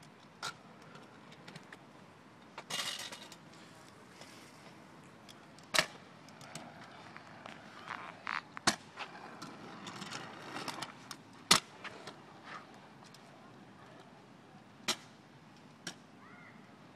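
Kick scooter on concrete: its small wheels roll with a low rumble, and the scooter clacks sharply against the concrete several times, with the loudest clacks about six and eleven and a half seconds in.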